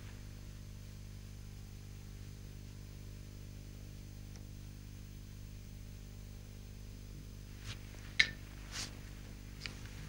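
Steady low electrical hum with faint hiss, broken near the end by a few short clicks or light taps, one of them sharp and much louder than the rest.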